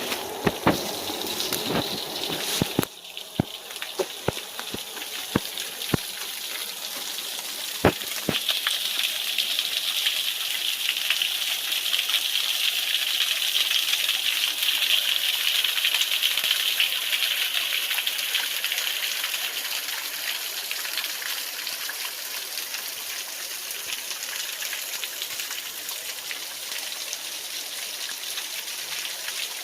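Waterfall rushing in a steady, even roar of falling water, with a few sharp knocks in the first eight seconds.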